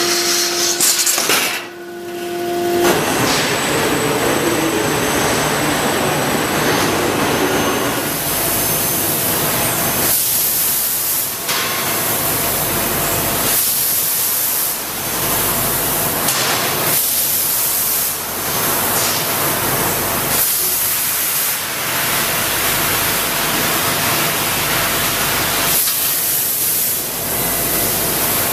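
CNC laser cutting head cutting a steel sheet for saw-blade blanks: a loud, steady hiss of the cutting gas jet that breaks off briefly every few seconds between cuts. It opens with a steady machine whine for the first few seconds.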